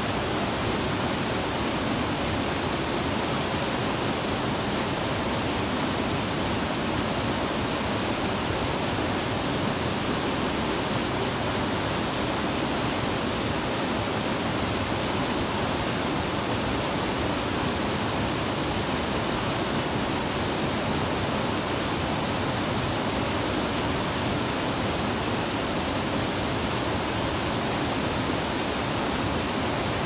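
Small waterfall cascading over rocks: a steady, unbroken rush of white water.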